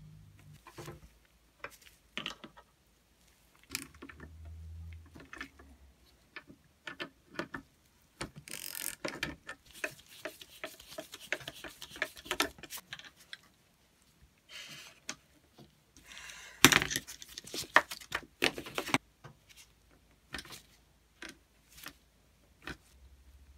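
Clicks, taps and clinks of small metal fittings and hand tools as a vintage Kismet double-barrel foot pump is reassembled: a nut fitted to its steel frame and bolts turned with a screwdriver. The handling comes in scattered knocks, with two longer runs of denser clatter, the louder one about two-thirds of the way in.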